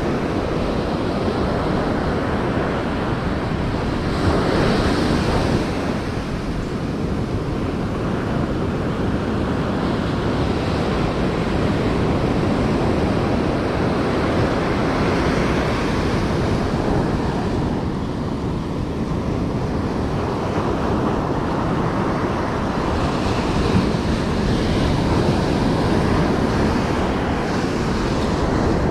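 Ocean surf breaking and washing up a sandy beach, a steady rush with a couple of louder surges of spray, mixed with wind buffeting the microphone.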